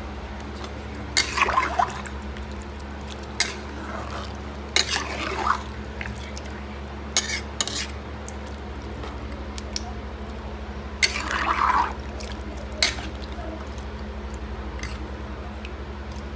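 A ladle stirring basmati rice and chicken into water in a metal pot: liquid sloshing with several short scrapes and clinks of the ladle against the pot, the loudest about eleven seconds in, over a steady low hum.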